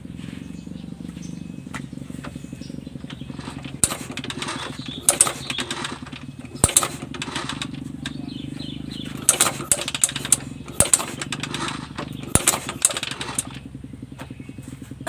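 Yamaha MX motorcycle engine being kick-started ("diselah") in about five bursts. It turns over with clattering and sharp metallic clacks but does not fire, under a steady low hum. It is the strange noise from inside an engine that will not start and has oil mixed into its radiator coolant.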